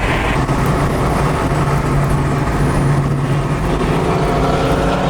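Car engine running at a steady cruise with road noise: an even, steady low hum.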